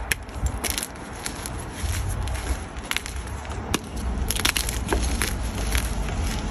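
Gym chalk being crushed by hand: scattered light crackles and crunches over a steady low wind rumble on the microphone.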